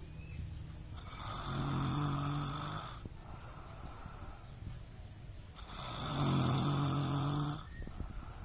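A woman snoring in her sleep: two long, rasping snores, each about two seconds, with quieter breathing between them.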